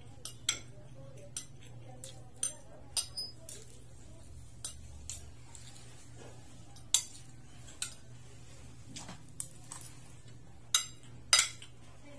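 Metal spoon and fork clinking and scraping against a plate as food is scooped up, in sharp, irregular clicks with a few louder clinks.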